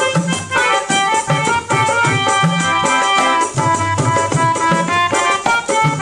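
Instrumental break in a Chhattisgarhi folk song: hand drums keep a steady beat under a melody played on instruments, with no singing.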